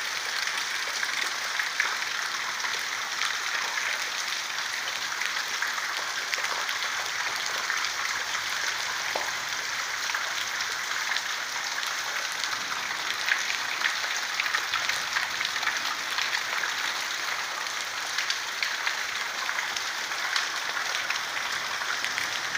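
Heavy rain pouring down in a thunderstorm, a steady even hiss of many fine drops pattering on the ground.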